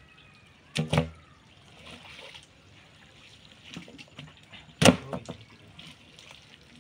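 Shallow muddy water sloshing and trickling as men wade through a drained pond, with two short loud splashes or knocks, about a second in and near five seconds.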